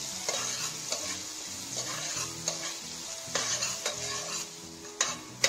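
Chopped onions sizzling in oil and butter in a stainless steel pot while a metal spoon stirs them, scraping and clicking against the pot, with two sharper clicks near the end. The onions are being sautéed to a light brown.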